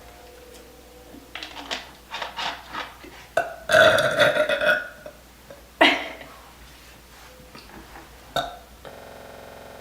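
A girl burps loudly: one long burp about three and a half seconds in, lasting about a second and a half, then a shorter, sharper one that drops in pitch about two seconds later. Short faint clicks come before them, and a steady hum starts near the end.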